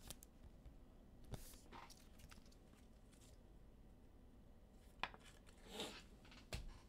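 Near silence with a few faint clicks and short rustles of trading cards being handled and slid past one another, once about a second and a half in and again about five seconds in.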